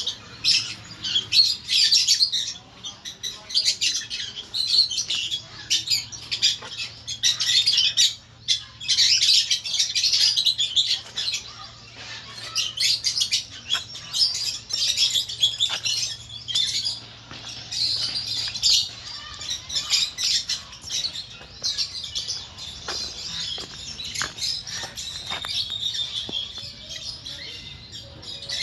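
A flock of small birds chirping together, a dense, unbroken chatter of many overlapping high chirps that thins slightly in the second half.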